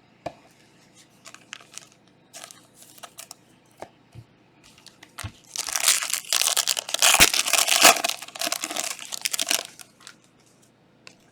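A Panini Prizm trading-card pack wrapper being torn open and crumpled: a dense crinkling that lasts about four seconds, starting about halfway through. Before it come scattered light clicks and taps of cards being handled.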